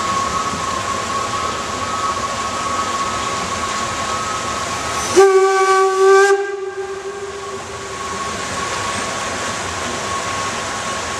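Narrow-gauge steam locomotive passing with its train, steam hissing steadily under a faint high steady tone. About five seconds in it gives one short whistle blast lasting just over a second.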